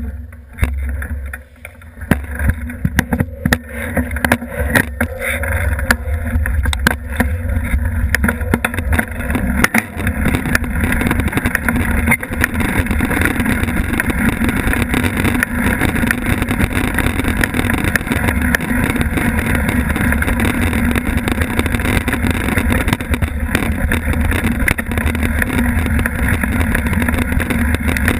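Mountain bike riding over a rough dirt trail, heard from a mount on the bike: a steady low rumble of wind and tyres, with the knobby tyres crunching on dirt and frequent rattles and knocks as the bike jolts over bumps. It starts quieter and picks up about two seconds in as the ride gets under way.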